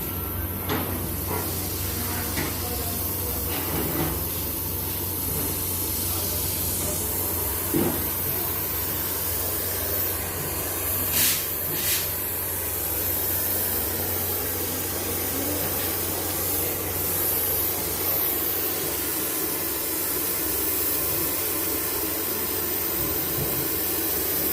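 Arc welding: a steady hiss of the welding arc with occasional sharp crackles, over a steady low hum.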